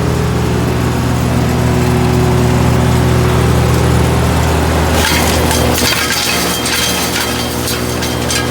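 GreenMech Arborist 150 wood chipper running at a steady engine hum. About five seconds in, branches are fed through and chipped with loud cracking and splintering, and the engine note dips under the load.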